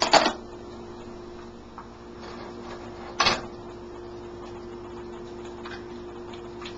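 Two sharp knocks about three seconds apart at a frying pan on an electric stove, over a steady hum. The second is an egg being cracked against the pan to fry it.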